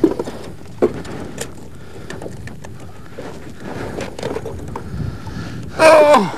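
Scattered knocks and bumps of a large muskie being handled and lifted out of the landing net in a boat, over a steady background hiss. Near the end a person lets out a short, loud exclamation that falls sharply in pitch.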